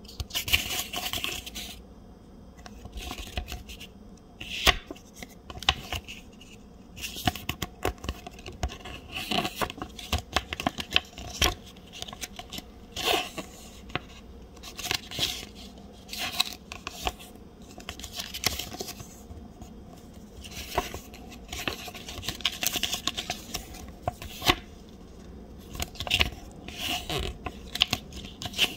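Hands handling packaging, rustling and scraping in irregular bursts with many sharp clicks and taps.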